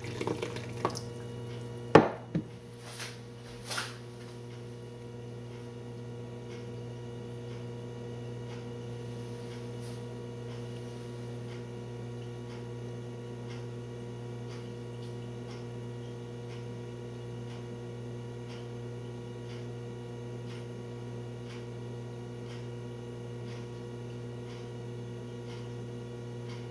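A few sharp knocks, then a steady electrical hum with faint, evenly spaced ticking over it.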